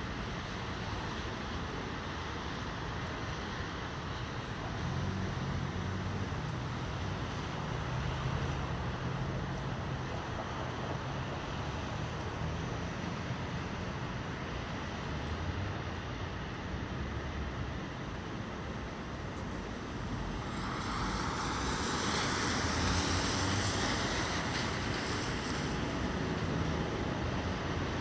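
Blizzard wind gusting and buffeting the microphone over a steady city-traffic background. About twenty seconds in, a louder rushing swell builds and holds for several seconds before easing.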